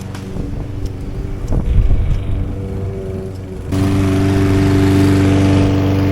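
Lawn mower engine running steadily, jumping suddenly louder a little past halfway.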